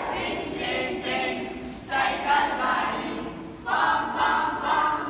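A group of children singing together without instruments, in phrases about two seconds long that break off about two seconds in and again near the end.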